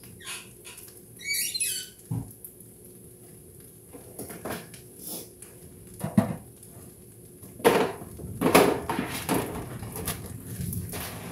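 A utensil scraping, clinking and squeaking against a non-stick skillet while eggs are scrambled in with the fried rice. A short run of squeaks comes about a second and a half in, and a louder burst of clattering scrapes comes a little past the middle.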